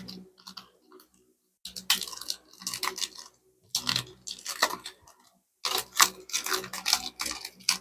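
Panini NBA Hoops Premium Stock trading cards being handled and slid against each other, dry rustling and clicking in three bursts, the first starting about a second and a half in.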